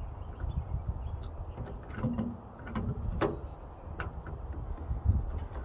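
Hand rivet nut setting tool, its handles lengthened with cheater pipes, being worked to compress a threaded insert: a handful of sharp metal clicks and creaks about a second apart over a low rumble, the loudest a little past the middle.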